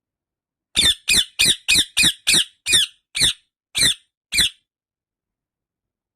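Indian ringneck parakeet giving a series of ten short, shrill squawking calls in quick succession, the gaps between them widening toward the end.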